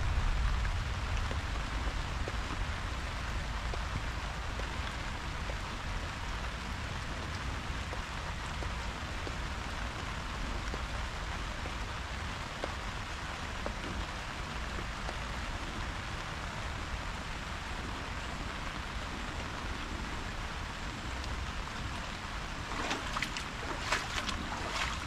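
Steady rain falling, an even hiss, with a run of sharp taps starting about two seconds before the end.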